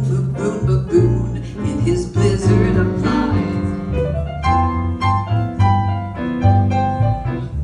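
Piano playing an instrumental passage of chords over a bass line, with a quick rising run of notes about halfway through.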